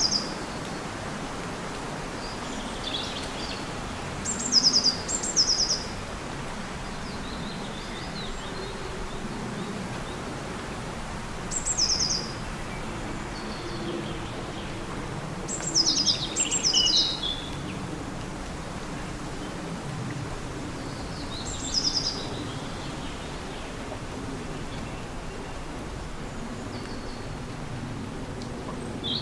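A songbird singing short, high, trilled phrases, one every few seconds, over a steady background rush.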